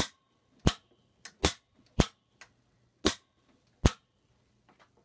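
Gedore Dremometer Type D torque wrench, set to 100 ft-lb, clicking as it trips at the set torque: its lever slips and snaps against the aluminium body. About six loud, sharp clicks come at irregular intervals over about four seconds, with a couple of fainter ones between them.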